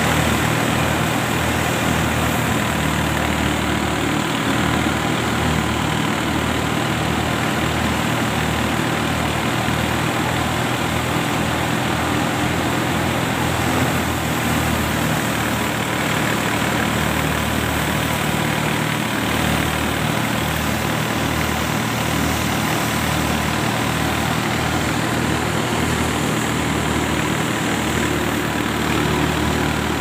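Tractor-driven wheat thresher running steadily: a dense, unbroken machine noise with an even hum and a low rumble.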